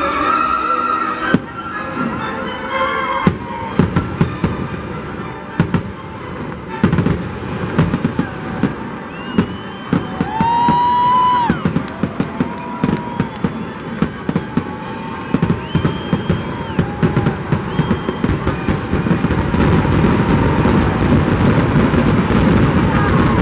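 Fireworks going off: a rapid run of sharp bangs and crackles, some whistling tones in the middle, and denser crackling toward the end, with music underneath.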